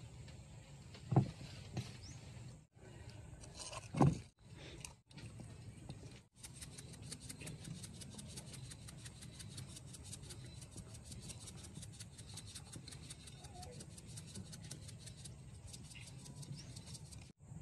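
Fish and plate being handled on a table: two dull knocks in the first four seconds, against a faint outdoor background with a steady high hiss. From about six seconds in, a rapid, even ticking of about six a second runs until shortly before the end.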